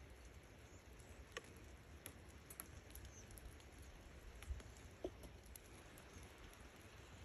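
Near silence over a low background rumble, with a few faint, scattered light taps and clicks of handling.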